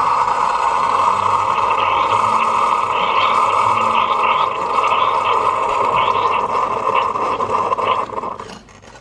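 Keurig single-cup coffee maker brewing a K-cup: a steady loud hum of the pump with crackling and gurgling of water being forced through the pod into the mug, cutting off near the end as the brew finishes.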